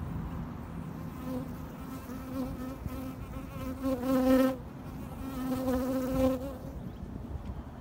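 A bee buzzing close to the microphone, a wavering hum that swells as it flies near, loudest about four seconds in and again around six seconds.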